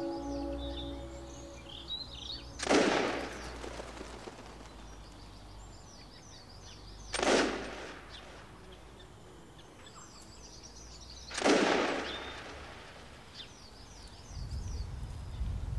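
Three gunshots, about four to five seconds apart, each with a rolling echo, over birds chirping. The last ringing of a church bell fades out at the start, and a low rumble comes in near the end.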